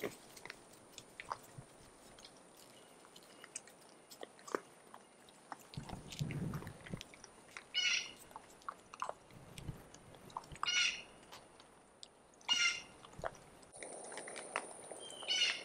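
Feral hogs feeding at close range, crunching and chewing feed with many small clicks, a low grunt about six seconds in and short high calls now and then.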